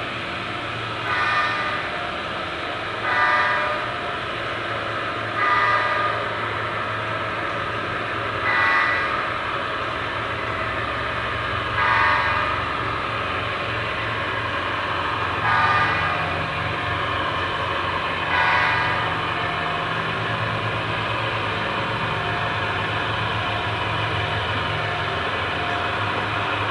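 A sound-equipped HO scale model diesel locomotive sounding its horn in seven short blasts, two to four seconds apart, stopping about two-thirds of the way through, over a steady low hum.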